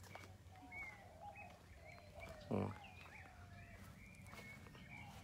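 Faint chorus of birds chirping and whistling, many short calls overlapping, with one brief low grunt-like call about two and a half seconds in.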